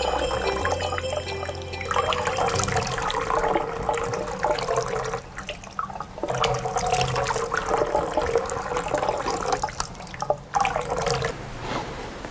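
Water running from a bathroom sink tap as hands scoop it and splash it over the forearms and face, with irregular splashes. It stops about eleven seconds in.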